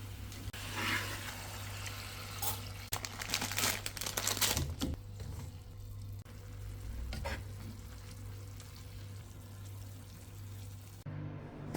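Food sizzling in a pan as it is stirred, with a run of utensil scrapes and clatters in the first half and another about seven seconds in, over a low steady hum.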